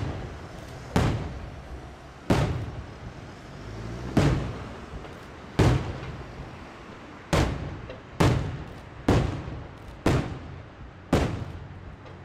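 Aerial firework shells from the 12th May Fireworks Factory bursting in the sky: nine sharp bangs, roughly one every second, each followed by a rolling echo.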